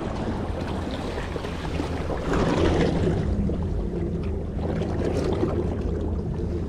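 Sea waves washing at the shore, with wind buffeting the microphone; the wash swells louder about two and a half seconds in.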